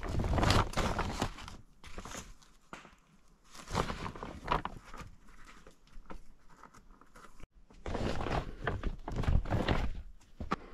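Plastic tarp rustling and crinkling in irregular bursts as it is pushed up against the roof poles and tied off through a grommet.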